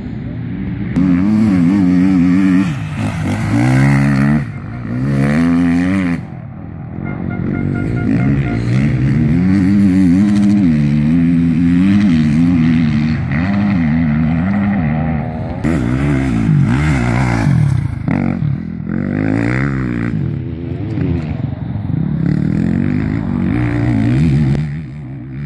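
Enduro motorcycle engines revving hard, their pitch rising and falling again and again as the riders accelerate and shift, with a brief drop in level about six seconds in.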